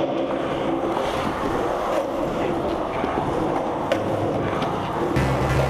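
Skateboard wheels rolling on concrete, a steady rumble, with one sharp click about four seconds in.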